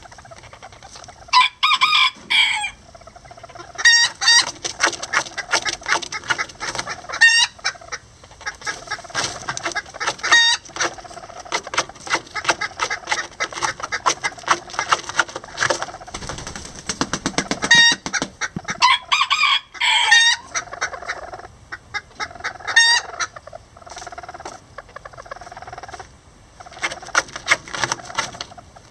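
Lavender Old English Game bantam chickens clucking and calling, with louder, drawn-out calls about a second and a half in and again about two-thirds of the way through. Quick clicking and rustling in the nest straw runs underneath.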